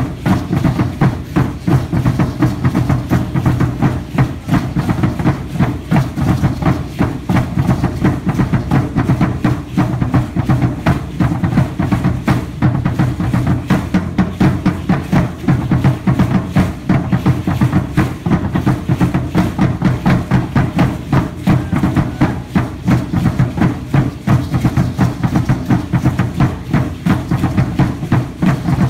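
Aztec huehuetl, a tall wooden upright drum with a skin head, beaten in a fast, steady dance rhythm.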